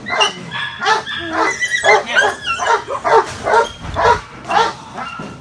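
A puppy barking repeatedly in high yips, about two barks a second, excited during bite-tug play; the barking stops near the end.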